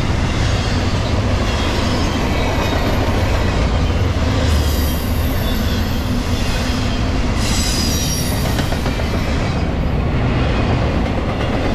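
A double-stack intermodal freight train's well cars rolling past at about 44 mph: a loud, continuous rumble of steel wheels on rail. High wheel squeals ring out twice, about four to five seconds in and again around eight seconds in.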